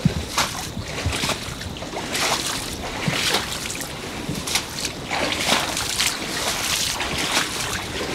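Someone wading through muddy floodwater in waders, with irregular sloshing and splashing steps about twice a second.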